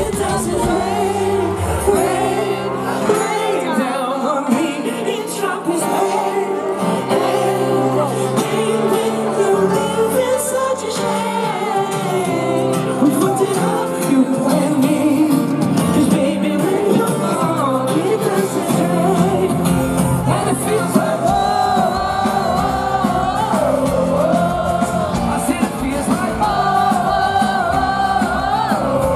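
Live pop-rock band playing with sung vocals, heard from within the audience; the bass drops away for stretches and comes back fuller about twenty seconds in.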